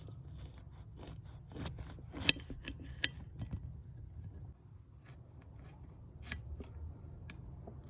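A run of irregular sharp clicks and clinks of kitchen utensils and dishes being handled. The two loudest come about two and three seconds in, and another comes near the end.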